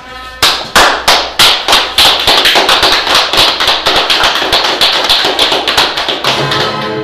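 A small group of people clapping: a few loud separate claps at first, then quick, steady applause from about two seconds in.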